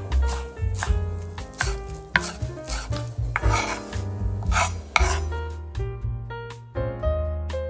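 Music with a beat: held bass notes under a melody of pitched notes, with sharp percussive hits throughout.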